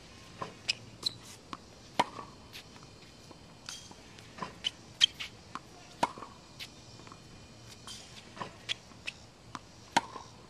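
Tennis ball machine shooting out a ball about every four seconds, each with a sharp knock, and lighter knocks and taps between as the balls bounce on the hard court.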